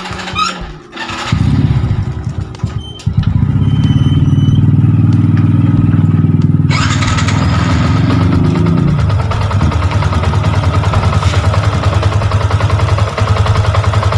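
Yamaha Sniper 150's single-cylinder fuel-injected engine being started about a second in, catching fully near three seconds, then settling into a steady idle. It is run with the freshly refilled coolant so that the coolant circulates through the engine.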